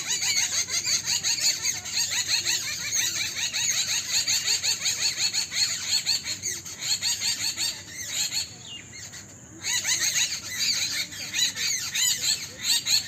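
A dense chorus of many small birds chirping rapidly and over one another, in high, quick twittering notes, with a brief lull about two-thirds of the way through.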